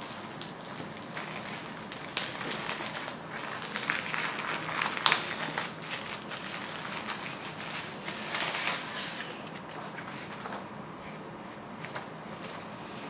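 Clear plastic wrapping crinkling and crackling as it is pulled and torn open by hand, in irregular bursts, with the loudest crinkles about five seconds in and again around eight seconds.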